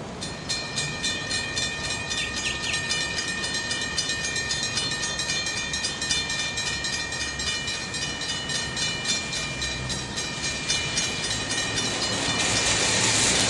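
A bell striking rapidly, about four strokes a second, as a train approaches. Near the end the rumble of the oncoming train swells in and grows louder.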